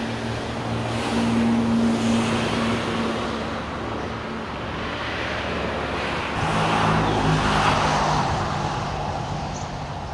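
Road traffic: vehicle engines humming as they pass, swelling about two seconds in and again about seven seconds in.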